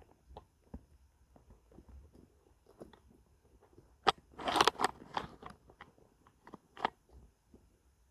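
Close crunching and rustling with scattered sharp clicks, loudest in a dense burst about four to five seconds in.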